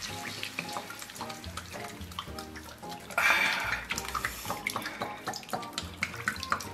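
Peanut oil pouring from a plastic bottle into a wok of pork belly cubes, a splashing trickle that swells briefly about three seconds in. Light background music plays underneath.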